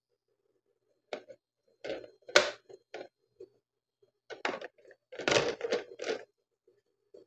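Tableware being handled on a serving tray: a run of sharp knocks and clinks as flasks, cups and glasses are moved and set down, the loudest hit about two and a half seconds in and a dense cluster around five to six seconds.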